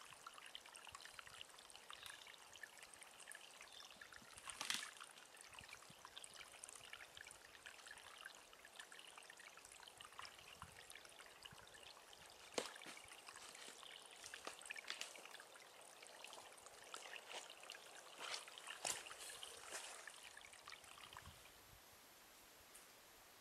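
Faint trickling of snowmelt water, with a few sharp clicks. The trickling fades out near the end.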